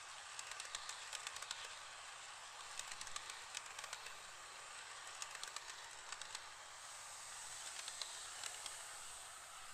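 HO-scale model freight train running along its track: a steady light rolling hiss with many irregular sharp clicks of the wheels over the rail joints.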